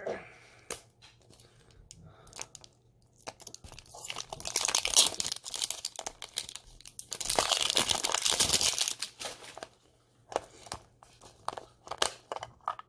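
Thin clear plastic wrapper crinkling and tearing as it is pulled open, in a long crackling stretch from about four to nine seconds in, loudest toward its end. Sharp clicks and taps from handling a plastic capsule ball come shortly before and again near the end.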